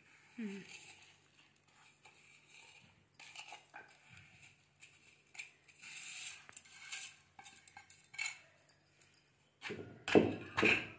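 A steel plate clinking and scraping against a stone mortar as salt, garlic and cumin seeds are pushed off it by hand. About ten seconds in, a pestle starts pounding in the stone mortar with heavy, regular thuds, roughly two a second.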